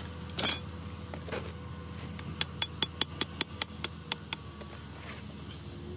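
A hammer striking a steel pin about ten times in quick succession, some five blows a second, each with a short metallic ring, driving the pin through plastic drainage cell into hard ground. A brief scraping sound comes about half a second in.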